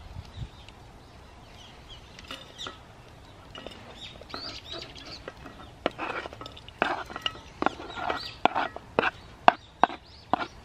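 A wooden utensil scraping and knocking against a wooden plate in a quick run of short, sharp strokes from about six seconds in. Small birds chirp faintly before that.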